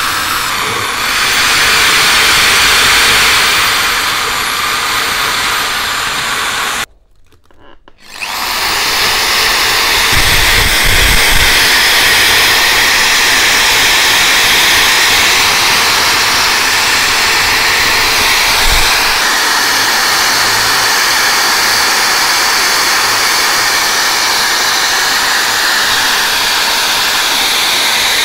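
Electric drill running steadily as a spinning abrasive attachment scours rust off meat grinder parts. The sound cuts out for about a second, around seven seconds in, then the drill runs on.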